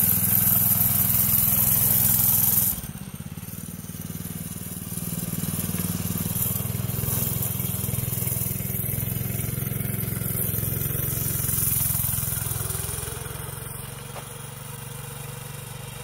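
TrailMaster Storm 200 mini bike's 196cc single-cylinder engine running under throttle as the bike pulls away. It drops abruptly about three seconds in, swells again, then fades near the end as the bike rides off.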